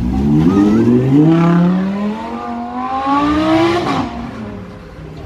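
Audi R8's V10 engine accelerating hard, its pitch climbing steadily for nearly four seconds, then dropping away sharply about four seconds in as the sound fades.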